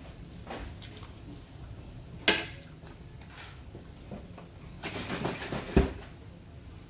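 A metal fork is set down with a sharp clack on a wooden cutting board about two seconds in. Near the end comes a short scuffle of handling that ends in a sharp knock as a juice carton is picked up.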